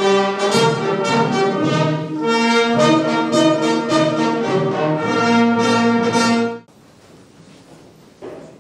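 Slow brass music of long held chords, which cuts off abruptly about two-thirds of the way through, leaving a faint hush.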